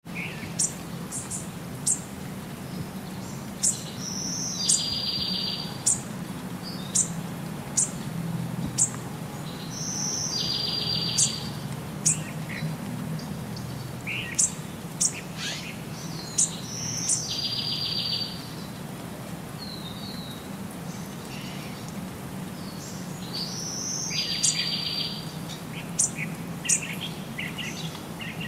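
Small birds chirping: short, sharp high chirps about once a second, with a buzzy trill coming back about every six to seven seconds, over a steady low hum.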